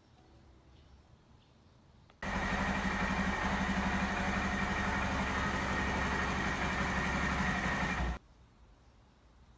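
Honda Monkey 125's single-cylinder four-stroke engine idling steadily for about six seconds, cutting in and out abruptly.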